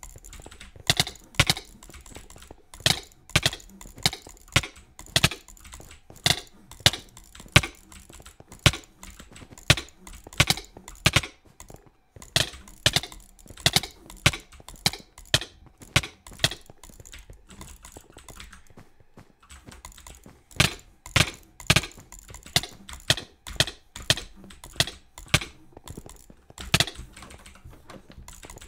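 A series of sharp, separate clicks at an uneven pace of about one or two a second, with a pause of a couple of seconds about two-thirds of the way through.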